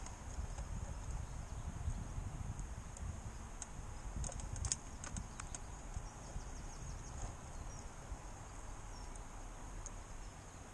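Wind rumbling on the microphone, with scattered small clicks and taps from fishing tackle being handled, a cluster of them about four to five seconds in.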